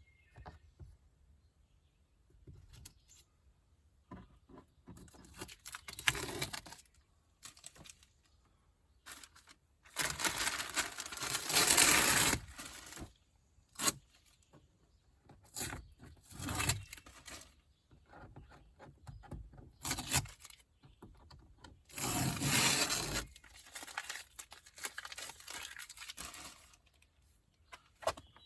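Masking paper and tape being peeled, torn and crumpled in irregular bursts, with two longer tearing runs partway through and near the two-thirds mark.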